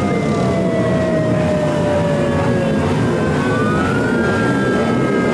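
Sirens of police escort motorcycles sounding over the rumble of many motorcycle engines, several siren tones sliding slowly down in pitch and one climbing about four seconds in.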